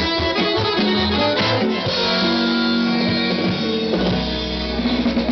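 Live folk dance band: two accordions playing a kolo over guitar, the busy melody giving way to long held chords with a sustained low note over the last second or so.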